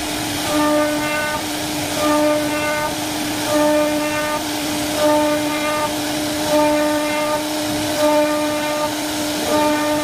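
CNC router spindle whining at a steady pitch while its carving bit cuts into a wooden door panel, over a hiss of cutting noise. The sound swells about every second and a half as the bit works along a repeating scalloped groove.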